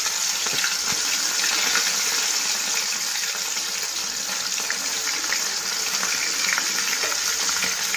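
Flour-coated rohu fish pieces shallow-frying in hot oil in an aluminium kadai: a steady sizzle with fine crackling.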